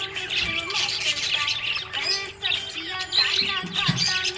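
A group of budgerigars chirping and warbling continuously, a dense chatter of quick rising and falling chirps. A low, steady melodic tone runs underneath, which may be background music.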